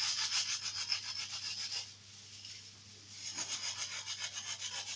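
Steel wool scrubber rubbed rapidly back and forth over a soapy metal gas-stove burner, a fast, even scratchy scrubbing. It eases off about two seconds in and starts again about a second later.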